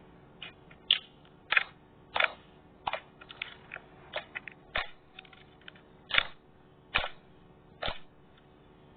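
Slime being worked by hand, giving a run of about a dozen short, sharp pops and clicks, irregularly spaced roughly every half second to second.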